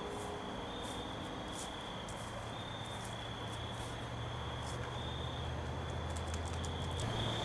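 Night insects chirping in a steady, pulsing chorus, with a low steady hum that comes in about two seconds in.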